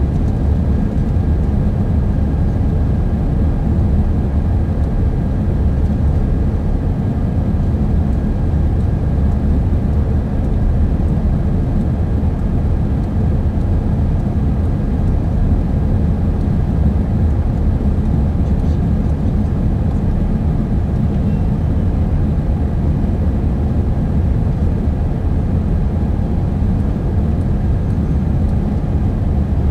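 Cabin noise of an Airbus A350-900 in flight: a steady, loud, low rumble from its Rolls-Royce Trent XWB engines and the airflow, with a faint steady high tone over it, heard from a window seat.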